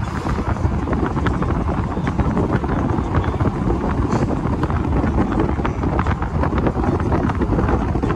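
Wind buffeting the microphone through an open car window while driving, a steady rumble with the car's road noise underneath.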